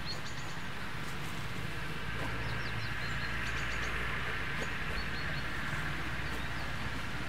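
Rural outdoor ambience: a steady low rumble, with small birds chirping in short quick runs of calls several times.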